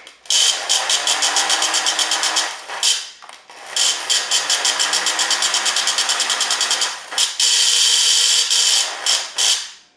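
Lionel #392E toy steam locomotive's electric motor running on the bench with its chugger switched on, giving a rapid, even mechanical chuffing over the motor's whine. The sound dips briefly about three seconds in and again about seven seconds in, then runs on. The chugger is working properly.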